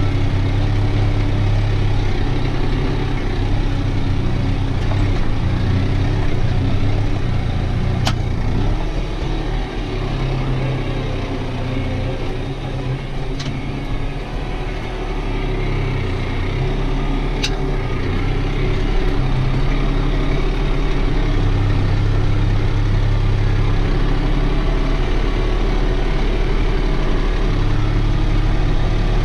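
New Holland TT4.65 tractor's diesel engine running steadily under load while pulling a mounted plough, heard from inside the cab. The engine note eases briefly about a third of the way in, then steadies again.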